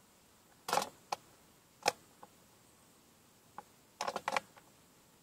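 Handling noise from the camera being turned and repositioned: a few sharp clicks and knocks, the loudest just under two seconds in, then a quick cluster of clicks about four seconds in.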